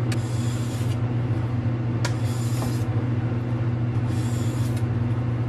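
Kitchen knife blade drawn across a wet ceramic whetstone with its grit slurry: three gritty scraping strokes about two seconds apart, each under a second long, during the final alternating sharpening passes. A steady low hum runs underneath.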